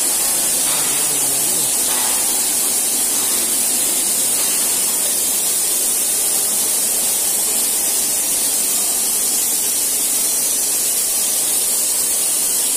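Steady, loud hiss of steam escaping from a steam locomotive standing in steam.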